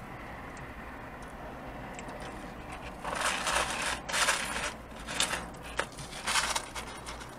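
Crinkling and crunching from fried fast food and its paper wrapping being handled and eaten close to the microphone: several short bursts starting about three seconds in, over a steady low hum.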